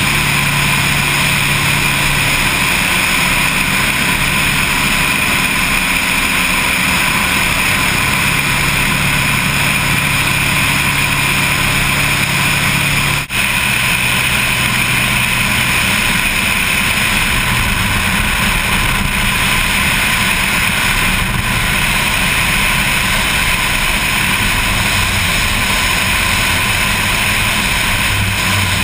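Twin engines and pusher propellers of a Lockwood Aircam drone steadily through a float-mounted action camera, with wind noise over them. A sudden cut about halfway through changes the engine pitch: the first part is on the water, the second in flight.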